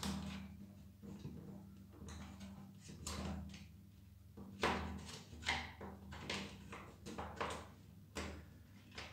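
Plastic parts of a Nilfisk G3 pressure-washer spray gun being worked together by hand against a spring: a scatter of small plastic knocks and clicks, more frequent in the second half, over a faint steady low hum.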